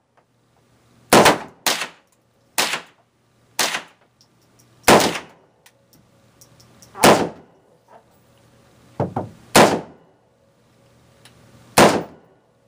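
AR-15 rifle firing .223 Hornady 55-grain handloads: about nine sharp shots at uneven intervals, some much louder than others.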